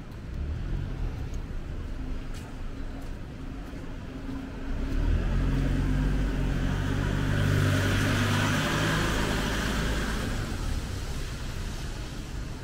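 A van drives past close by on a wet road. Its engine hum and the hiss of its tyres on the wet tarmac swell to a peak about eight seconds in, then fade away.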